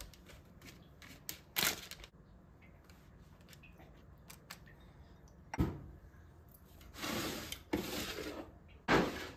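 Pastry brush dabbing and brushing over raw pumpkin chunks on a baking-paper-lined tray: small clicks and scratches, with several louder rustles of the baking paper and a single knock about five and a half seconds in.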